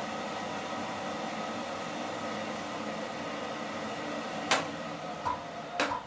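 Small centrifugal blower running steadily under variable-frequency-drive control: a steady rush of air with a faint whine. Near the end come three sharp clicks or knocks, the first the loudest.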